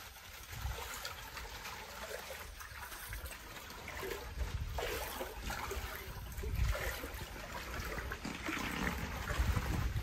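Shallow floodwater sloshing and splashing in irregular bursts as someone wades through it, with rain falling on the water's surface.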